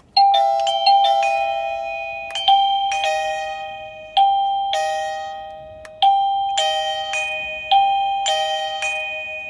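Wi-Fi doorbell chime playing a bell-like tune. A quick run of notes opens it, then high and low notes alternate in ding-dong fashion, each struck note ringing and fading.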